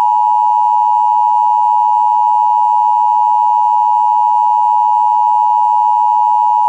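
Emergency Alert System attention signal: a loud, steady two-tone alarm, 853 and 960 Hz sounded together, held unbroken. It marks the start of a broadcast emergency alert.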